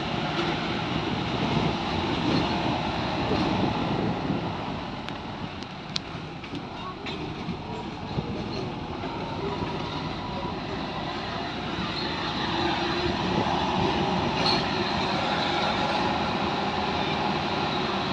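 A vehicle driving slowly over a rough dirt track: its engine running under the steady rattle and knocking of the body and suspension over the bumps, with a few sharp clicks in the middle. It eases off for a few seconds and gets louder again about twelve seconds in.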